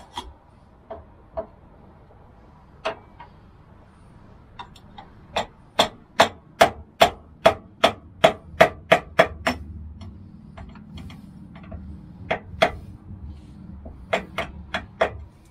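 Hammer striking a screwdriver set in the slot of a van's rear bump stop, knocking it round to unscrew it from the frame. Sharp strikes: a few scattered at first, then a quick even run of about fifteen, roughly three a second, and a few more near the end.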